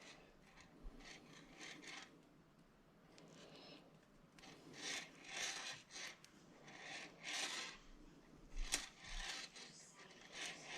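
Fishing line being tied to a swivel, the monofilament rubbing and drawing through the fingers in a series of short rubbing strokes, with a small sharp click near the end.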